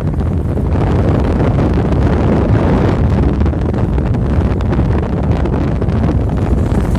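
Steady road and wind noise inside a moving car, with wind buffeting the phone's microphone; the rumble grows slightly louder about a second in.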